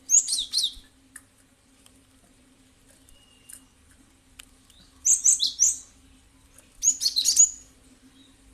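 Cinereous tit (gelatik batu) calling in three short bursts of rapid, high, falling chirps: one at the start, one about five seconds in, and one about seven seconds in.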